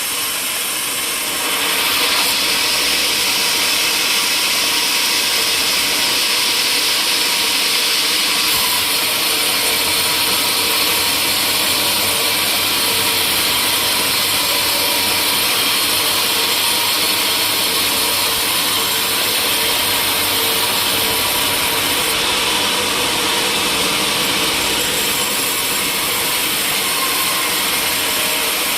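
Sawmill saw cutting through timber: a steady, loud, high whine and hiss that grows louder about two seconds in and then holds.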